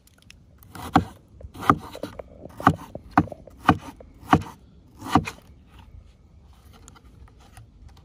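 Kitchen knife chopping tomatoes against a wooden cutting board: seven sharp chops about two-thirds of a second apart, then only faint light knocks for the last few seconds.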